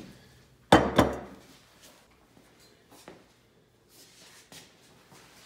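Two sharp knocks of dishes on a wooden table about a second in, followed by a few faint clicks.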